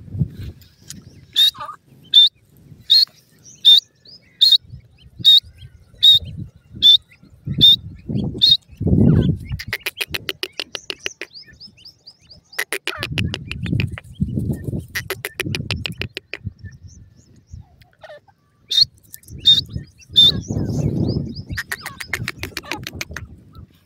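Young francolins (teetar) calling: a string of sharp, high chirps a little over one a second, then long, fast rattling trills. Low rumbling thumps come between the calls.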